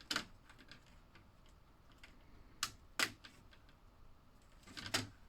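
Plastic slot car track railings clicking and knocking as they are handled and fitted: four sharp clicks spread over a few seconds, with faint ticks between.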